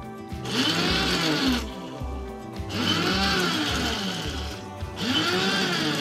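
Vintage electric blade coffee grinder pulsed three times while chopping dried chillies: each burst, the motor whirs up and then winds down.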